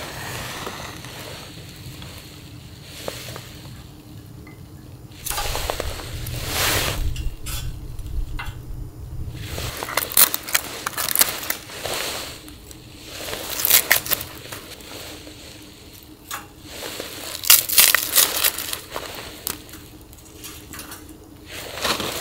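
Irregular crunching and rustling with sharp clicks and light clinks, coming in bursts a second or two long, the sound of things being handled close by.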